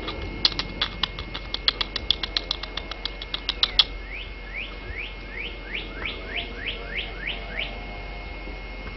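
A bird singing: a fast, even run of sharp chip notes for about four seconds, then a slower series of about ten clear downslurred whistles.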